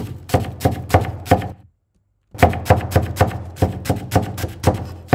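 Kitchen knife chopping vegetables on a cutting board, in the original on-set recording: rapid cuts about five or six a second. It breaks off completely for about half a second just before the two-second mark, then carries on at the same pace.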